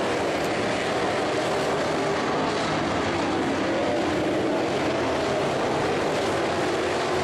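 Dirt-track modified race cars' engines running at speed around the oval, a steady blended drone whose pitch wavers slightly as the cars go through the turns.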